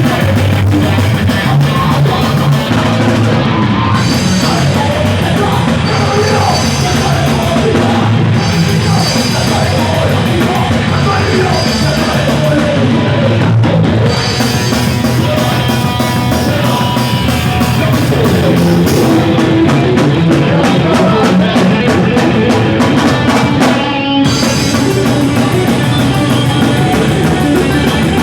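Live hardcore punk band (d-beat/crust) playing loud and fast on distorted electric guitars, bass and a driving drum kit, with shouted vocals.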